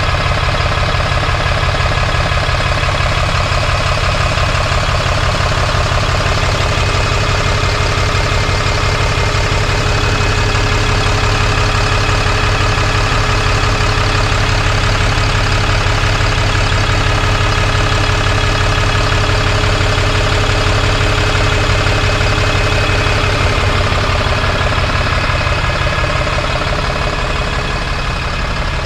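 Scania DC07 diesel engine of a Fencer F1 bus idling steadily, heard up close at the open rear engine bay. It fades slightly near the end.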